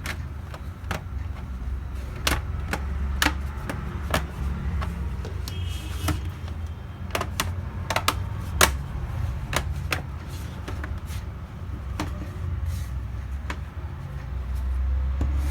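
Irregular sharp plastic clicks and taps, one or two a second, as the laptop's plastic bottom panel is pressed back into place and fastened, over a steady low hum.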